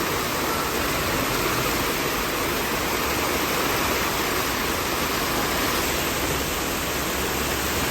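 Heavy rain with runoff water rushing along the road: a steady, even rushing noise.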